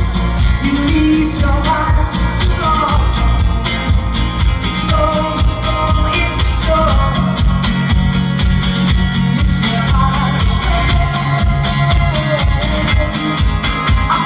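Live one-man-band music: a strummed acoustic guitar with a foot-played bass drum keeping the beat, and a male voice singing.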